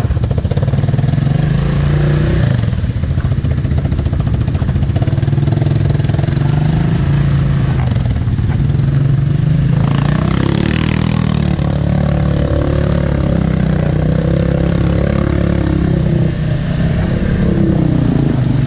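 Off-road vehicle engine running and revving, its pitch rising and falling as the machine works over rough ground. About ten seconds in there is a brief rush of harsher noise.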